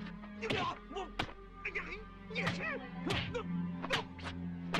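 Martial-arts film fight sound effects: about half a dozen sharp punch and kick hits in quick succession, over a steady music score.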